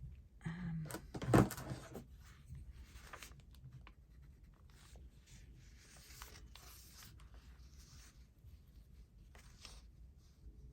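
Paper being handled and marked by hand at a craft table: rustling and a knock about a second and a half in, then soft, scratchy marking strokes on the paper.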